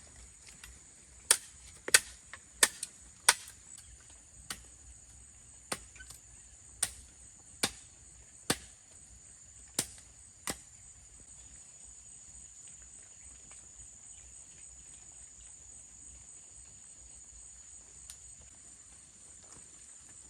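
About a dozen sharp knocks, spaced irregularly about a second apart, over a steady high-pitched insect drone; the knocks stop after about ten seconds.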